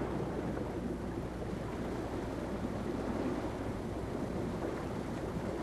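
Steady wind and sea noise, an even rushing with a faint low hum beneath it.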